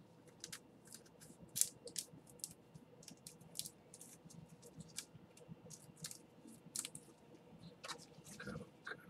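Faint, irregular light clicks and ticks, a few a second.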